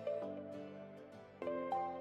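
Instrumental background music with held notes; a new, louder chord comes in about one and a half seconds in.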